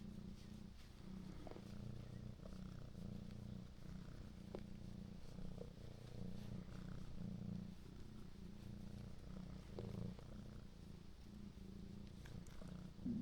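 Domestic cat purring steadily and softly.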